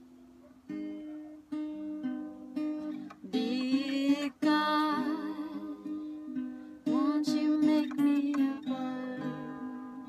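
Acoustic guitar played as a song's intro, single plucked notes and chords starting just under a second in. A high, wavering voice holds long notes over it for a couple of seconds about a third of the way through.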